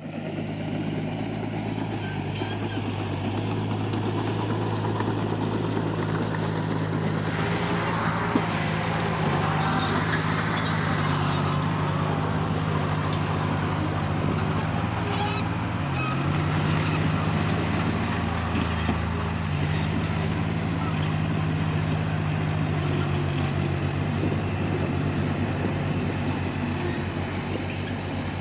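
Komatsu D31P bulldozer's diesel engine running steadily, its pitch dipping briefly about sixteen seconds in. A louder rush of clattering noise rises over it from about eight to eleven seconds in.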